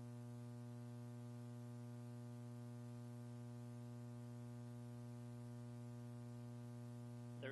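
Steady electrical mains hum: a low, unchanging buzz with a stack of evenly spaced overtones, carried on the launch-control audio feed.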